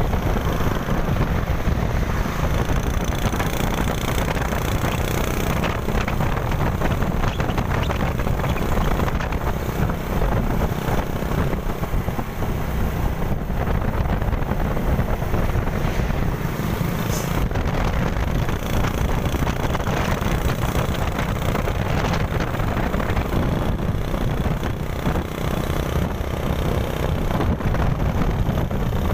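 Steady wind rushing over the microphone of a moving motorcycle, mixed with engine and road noise.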